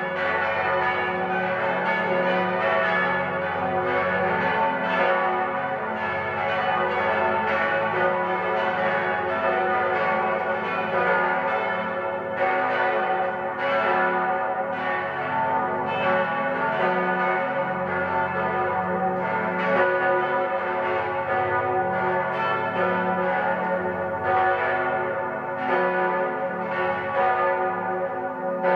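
Full peal of eight church bells, tuned F♯, A, C♯, E, F♯, G♯, A and B (bells 1, 2 and 4 to 9 of a nine-bell ring, bell 3 silent), swinging together with their strokes overlapping in a continuous jangle. It is the festive ringing that calls to a high-feast conventual Mass.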